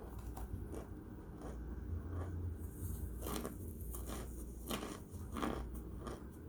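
A person biting and chewing hard cornstarch chunks, with a few sharp crunches in the second half.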